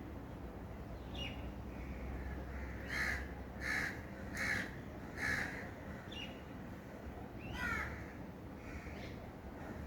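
Birds calling: four loud calls in a row about three-quarters of a second apart around the middle, with shorter chirps before and a quick warbling call after.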